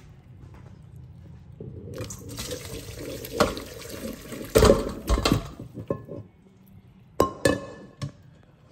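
Boiled chicken drumsticks and hot cooking water poured from a pot into a metal colander. The water splashes and drains for a few seconds, and the pieces and pot knock against the colander, loudest about halfway through. A few separate clanks follow near the end.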